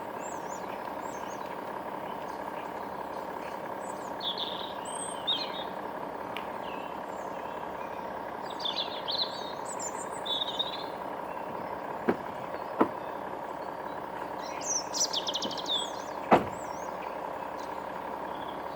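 A steady mechanical hum, like an idling vehicle engine, with small birds chirping over it now and then. A few sharp clicks come through, the loudest near the end.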